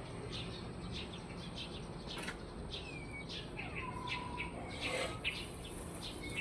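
Wild birds chirping in short, quick calls, with one call gliding downward in pitch about three seconds in, over a steady low background rumble.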